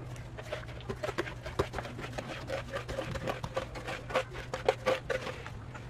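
Small metal trowel scraping and tapping against a plastic cup as wet cement is scraped out into a plastic bucket, a run of irregular clicks and scrapes over a low steady hum.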